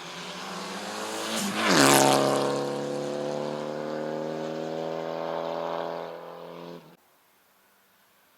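Race car at a hillclimb approaching at speed and passing close by, its engine note dropping sharply in pitch as it goes past, then holding a steady note as it pulls away. The sound cuts off suddenly near the end.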